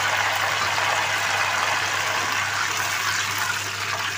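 Hot cooking oil sizzling around a mound of yogurt just added to the pan with cumin seeds and ginger-garlic paste. It is a steady hiss that eases slightly toward the end.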